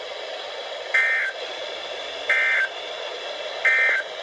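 Three short bursts of two-tone digital data from a NOAA weather radio, about a second and a half apart, over steady radio hiss: the EAS end-of-message code that closes the winter storm warning broadcast.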